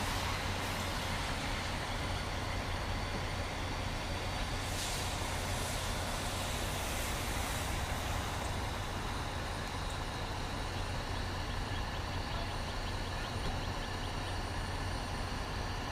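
Steady low rumble of a semi truck running, under a constant hiss that does not change.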